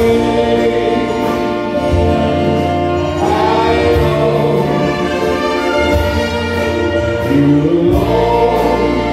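Live dance-orchestra music: a saxophone and brass section playing long held chords over bass and keyboard.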